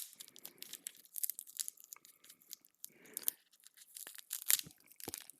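Small packaging being torn open and crinkled by hand: irregular crackling and rustling, with a couple of sharper snaps near the end.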